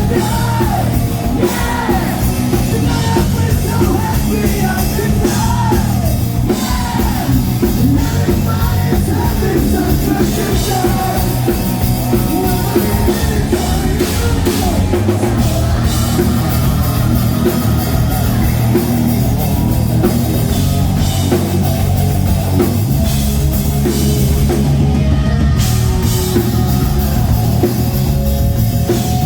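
Rock band playing live, loud and steady: drum kit, instruments and lead singing.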